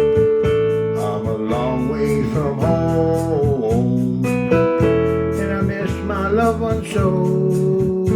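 Instrumental passage of a folk song: acoustic guitar strummed in a steady rhythm under a lead melody that bends in pitch.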